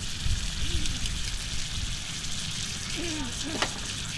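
Thick-cut beef tongue sizzling steadily on a hot iron griddle plate over a wood fire, with a sharp click about three and a half seconds in.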